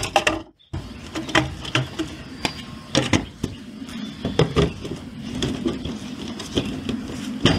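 Irregular plastic knocks and clicks from a CCH Endurance cal hypo chlorine feeder as its tablet cartridge is set back in and its handled lid is fitted and turned, over a steady low hum.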